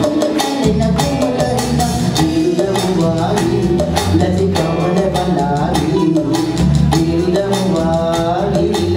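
Live band music with a steady beat, the song accompanying the dance.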